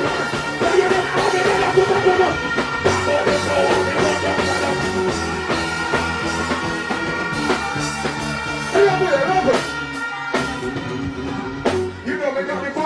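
Reggae backing music played loud through a stage sound system, with a vocalist singing over it; the bass drops out briefly about ten seconds in.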